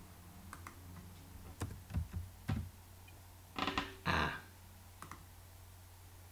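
Computer keyboard keys clicking: a few single taps, then a quick cluster of presses near the middle, as text is deleted. A low steady hum runs underneath.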